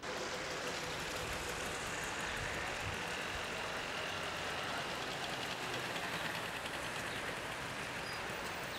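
Street traffic on a busy city avenue: cars and a motor scooter driving past, a steady wash of traffic noise.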